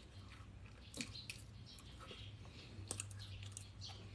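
Faint chewing of a mouthful of food, with a few soft wet mouth clicks, over a steady low hum.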